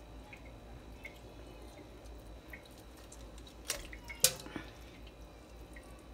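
Water splashing and dripping in a bowl as hands work raw whole chickens soaking in it, pulling fat from inside the birds: small scattered drips, with two louder sharp splashes about three and a half and four seconds in.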